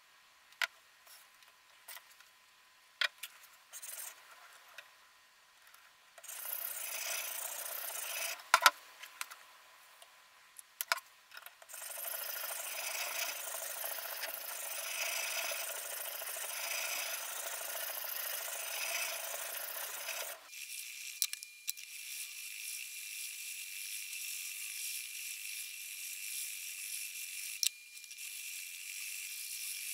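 Diamond sharpening stone rubbing along the steel edge of a kitchen knife on a guided knife sharpener, in repeated scraping strokes with a swell about every two seconds. A few light clicks come in the first few seconds, and after about twenty seconds the scraping turns to a steadier hiss.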